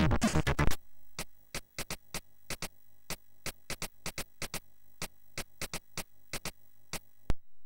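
Commodore 64 SID-chip demo music that cuts off about a second in, leaving a run of sharp clicks, about three a second, which end with a louder click near the end.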